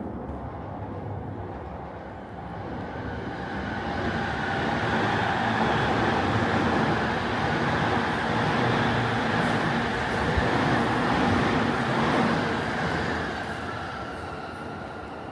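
A train passing nearby: its rumble swells over a few seconds, holds for several seconds, then fades away near the end.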